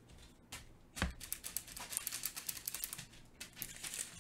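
Small resin diamond painting drills clicking and rattling against each other inside a plastic bag as it is handled, a thump about a second in and then a fast run of ticks for a couple of seconds.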